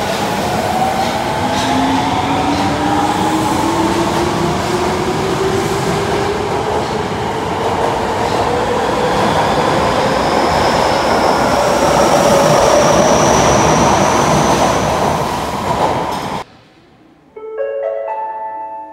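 Osaka Metro Midosuji Line subway train pulling out of an underground platform. Its motor whine rises steadily in pitch as it accelerates, over the rumble of wheels on rail. The sound cuts off abruptly about 16 seconds in, and a short electronic chime melody follows near the end.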